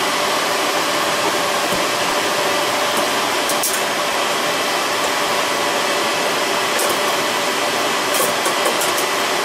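Steady whoosh of cooling fans from running equipment in a server room, an even hiss with faint hum tones. A few light clicks as the inner rack rail is pressed onto the side of the server.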